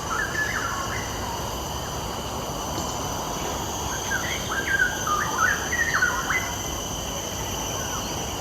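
A songbird singing two bursts of quick, jumping whistled notes, one right at the start and a longer one in the middle, over a steady high drone of insects.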